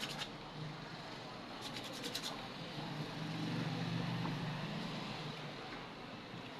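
Sandpaper rubbed back and forth in a short burst of quick strokes about two seconds in, followed by low handling noise. This is sanding down a small angle grinder's replacement carbon brush so the brush cover will close.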